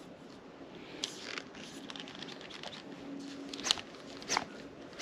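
Light handling noises from a telescopic fishing rod and spinning reel being held and turned in the hands: a few soft clicks and rustles, around a second in, twice near the end, and once more at the very end.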